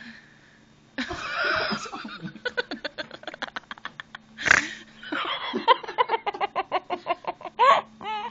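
A person laughing in long runs of rapid, breathy bursts, with a sharp click about four and a half seconds in.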